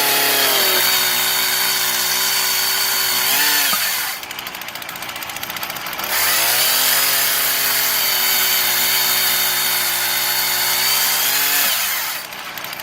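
Old Poulan two-stroke chainsaw mounted in a homemade cutting rig, held at full throttle for about four seconds, dropping back briefly, then running at full throttle again for about six seconds while cutting small firewood pieces to length, and dropping back near the end.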